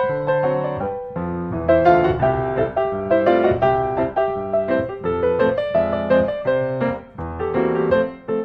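Background music: a piano melody over a bass line, with a brief dip about seven seconds in.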